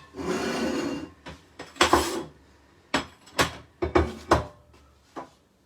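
Crockery and kitchen utensils being handled: a scrape lasting about a second, then a series of sharp knocks and clinks as bowls and pans are set down and moved.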